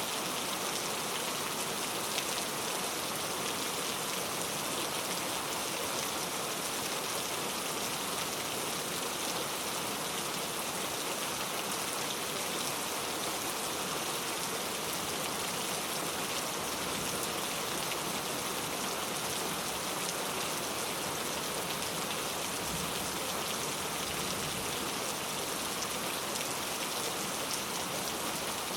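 Heavy rain falling steadily, a dense even hiss of drops tapping on a leaf-covered road.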